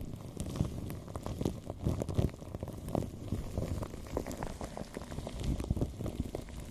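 Close-miked ASMR sounds: a dense, irregular crackling with scattered sharper clicks.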